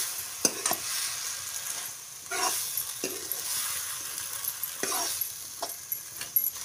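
Mushroom and potato curry sizzling in a black kadai while a spatula stirs it, giving a handful of scrapes against the pan over a steady frying hiss.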